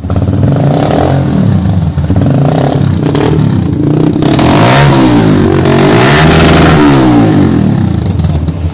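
Modified Hero Honda CBZ motorcycle engine, single-cylinder, running through an aftermarket silencer. It runs steadily at first, then from about halfway it is revved, its pitch rising and falling several times.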